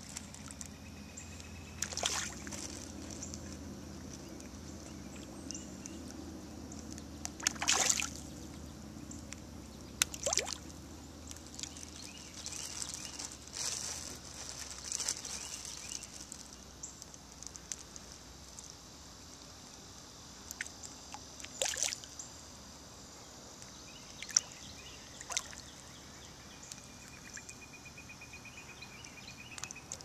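Fish breaking the water's surface to take floating food: short splashes and slurps at irregular gaps, about eight of them, over a low steady outdoor background.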